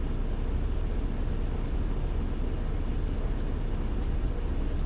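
Steady low rumble of a semi truck idling, heard from inside the cab.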